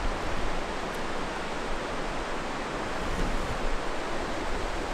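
Steady rush of Falls Creek's fast-flowing water, an even unbroken noise.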